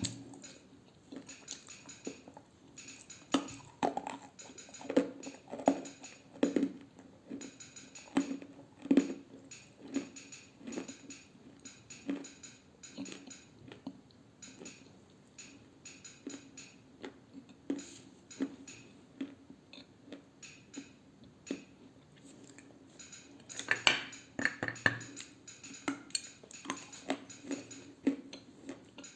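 Close-miked crunching of dry edible clay being bitten and chewed: an irregular run of sharp, brittle crunches and clicks, with a loud cluster about 24 seconds in.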